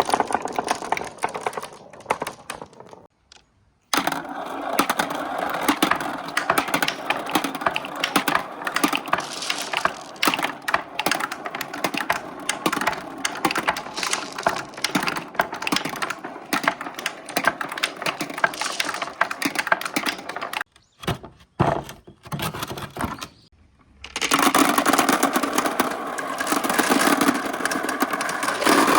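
Many glass marbles rolling and clattering through a marble run, a dense stream of rapid clicks and knocks. The clatter breaks off briefly about three seconds in and again about twenty-one seconds in.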